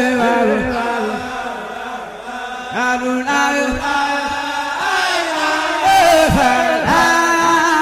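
Background music of chanted singing: voices gliding in pitch over steady held tones.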